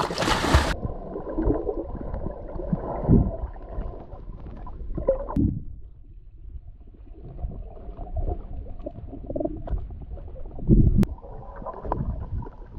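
A splash as someone jumps into the sea, then muffled underwater sound: a low gurgling rumble that swells now and then.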